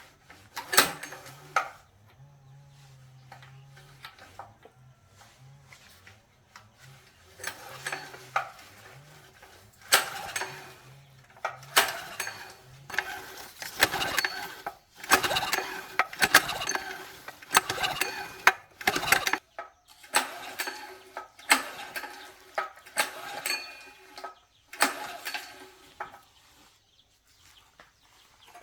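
Metal tools and motor parts clinking and clanking as they are handled and knocked together during hand repair work on an electric motor, in irregular runs of sharp, ringing strikes.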